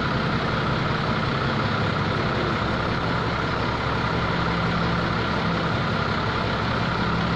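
Heavy mobile crane's diesel engine running steadily: a low, even drone with a faint steady whine above it.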